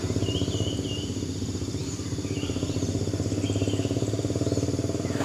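A steady low motor hum with a fast, even pulse, like a small engine running. A few short bird chirps sound over it, in the first second and again later on.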